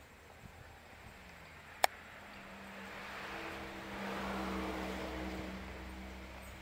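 A car passing along the street, its engine hum and tyre noise swelling to a peak about four seconds in and then fading away. A single sharp click comes just before the car is heard.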